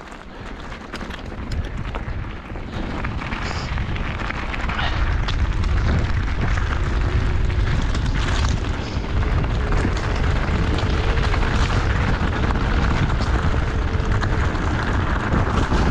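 Wind buffeting the microphone and mountain bike tyres rumbling over a rough, muddy trail during a fast descent. The rush builds over the first several seconds as speed picks up, then stays steady and loud.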